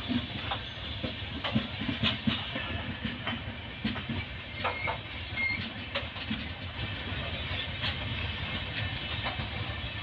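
Passenger coaches of an express train rolling past at close range: a steady rail rumble broken by irregular clicks and knocks from the wheels.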